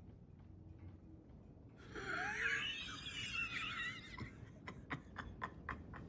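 A man laughing: a high, wavering cackle about two seconds in, breaking into a run of short, breathy pulses.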